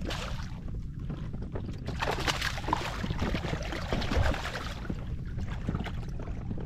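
Splashing water with wind rumbling on the microphone, the splashing loudest about two seconds in.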